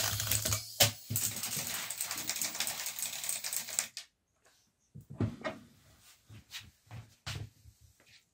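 Think Gizmos Gyro Zoomer mini toy RC helicopter's little electric motor whirring, then, after a sharp click about a second in, clattering and rattling as it skitters off the table and onto a wooden floor, stopping suddenly about four seconds in. A few scattered knocks follow as it is handled. The helicopter will not lift off, a fault the owner puts down to a split pinion gear slipping on the motor shaft.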